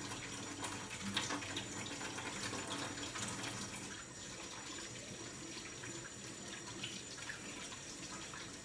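Kitchen faucet running into a stainless steel sink as hands are washed under the stream, with small splashes; the flow sounds a little softer from about four seconds in.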